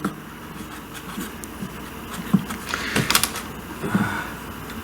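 Scattered small metal clicks and scrapes of hand work as an engine mounting bolt is started into its thread, with a cluster of sharper clicks about three seconds in.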